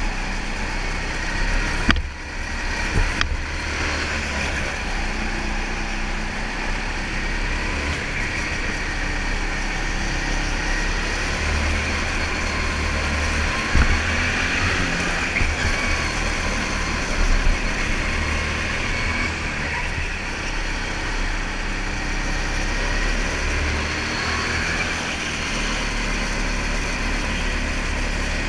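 Go-kart running at speed around a track, heard from a camera mounted on the kart, as a steady low engine hum under a wide rush of noise. A couple of sharp knocks come about two and three seconds in.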